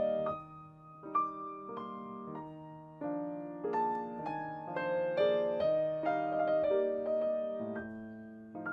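Background piano music: single notes struck one after another over held lower notes, each fading as the next comes in.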